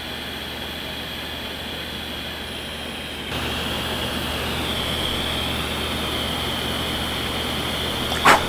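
Steady background hiss with a low hum, a little louder from about three seconds in, and a short sharp knock near the end.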